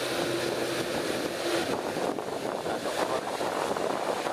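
Steady whooshing hiss of a Boeing 787-8's GE jet engines at low taxi thrust, mixed with wind on the microphone.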